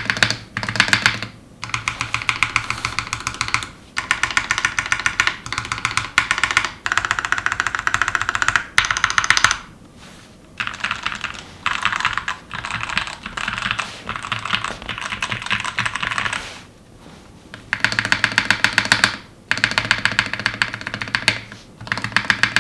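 Fast typing on a Glorious GMMK TKL mechanical keyboard fitted with Gateron Yellow switches on the letter keys and Gateron Ink Reds, a deep "thocky" key sound. The keystrokes come in quick runs of a few seconds, broken by short pauses.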